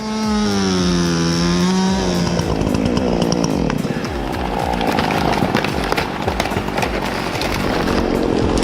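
Chainsaw running at full throttle and cutting into a tree trunk. Its high engine note dips as the chain bites into the wood during the first two seconds, then gives way to a rougher, noisier cutting sound.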